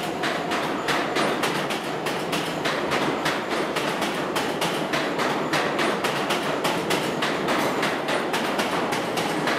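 R160 New York City subway train running past at speed: a steady rumble of wheels on rail, with a rapid, uneven run of sharp clicks as the wheels cross rail joints.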